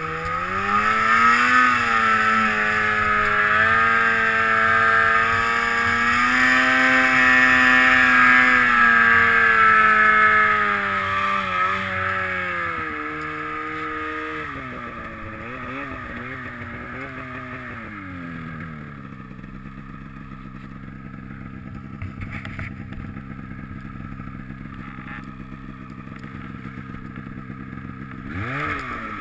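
Polaris snowmobile engine under throttle at high revs, easing off about twelve seconds in and winding down to a low steady run for the second half, then revving up sharply again near the end.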